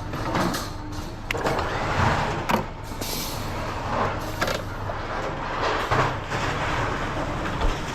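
A vehicle running with a steady low hum, with short knocks and rattles every second or so.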